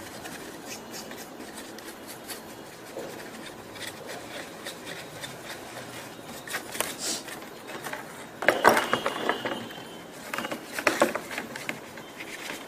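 Rubbing and scraping of a laptop's processor fan being cleaned by hand, with irregular small clicks and two louder scratchy clusters, one past the middle and one near the end.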